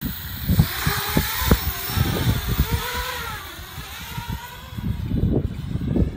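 Small quadcopter drone's electric motors whining as it takes off, the pitch rising and falling with the throttle and fading as it climbs away. A low rumble takes over in the second half.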